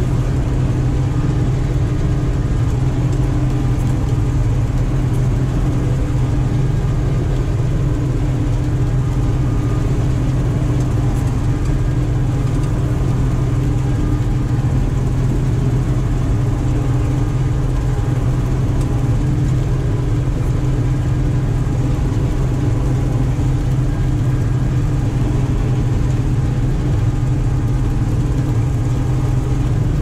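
Combine harvester running at full throttle with its threshing units and header engaged: a steady, even engine drone under threshing load.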